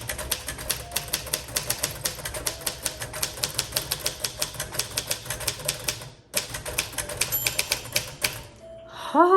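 1939 Royal Aristocrat portable typewriter being typed on in a fast, even run of type-bar strikes, about six or seven a second, with a brief pause about six seconds in. The typing stops about eight seconds in, and a short voiced sound follows near the end.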